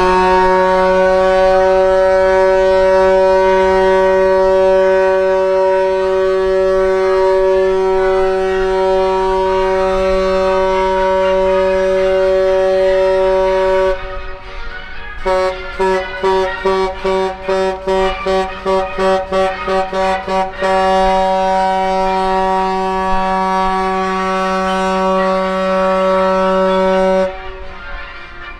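Horn of the Project 302 river cruise ship Zosima Shashkov sounding a deep farewell signal: one long steady blast of about fourteen seconds, a quick run of about a dozen short blasts, then a second long blast of about six seconds that stops shortly before the end.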